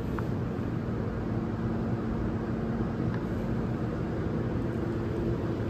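Steady hum and rushing noise of shop machinery running, with a few low tones held constant.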